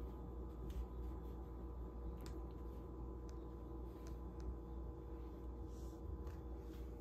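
A few faint, scattered clicks and taps of a plastic bottle cap being batted about on a tiled floor by a cat's paw, over a steady low hum.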